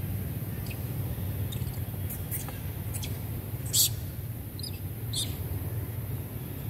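Monkeys squeaking in short high-pitched bursts, about seven in all, the loudest a little under four seconds in, over a steady low rumble.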